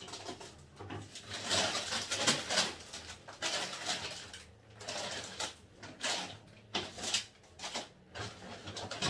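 Rustling and crinkling of a paper shopping bag and plastic packaging being rummaged through, in irregular bouts with short pauses.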